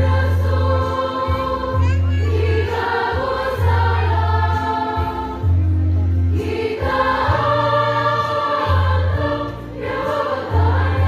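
Choir singing held chords in harmony, over a deep bass note that sounds in steady blocks roughly every two seconds.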